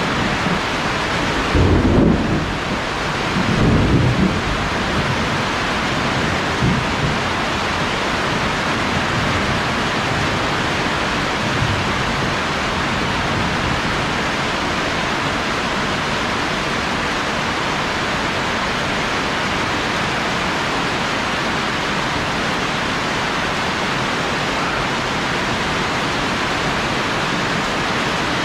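Heavy rain pouring steadily, a dense even hiss. Two loud low rumbles come in the first few seconds, with fainter ones a little later.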